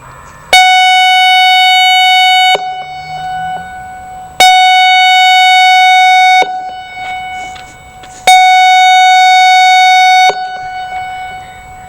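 ASC I-Force electronic outdoor warning siren sounding three loud, steady tones of one pitch, about two seconds each with short gaps between them, as its test signal. Each tone cuts off sharply and rings on briefly in echo.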